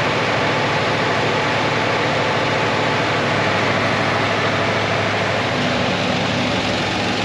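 Heavy truck diesel engine running at a steady speed, unchanged throughout.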